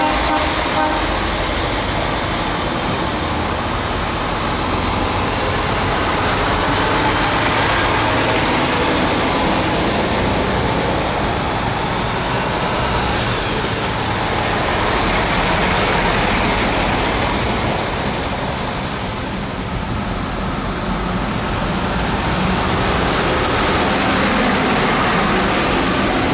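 Convoy of heavy trucks, MAN and DAF among them, driving slowly past one after another with their diesel engines running. The sound swells as each truck passes and eases briefly between them.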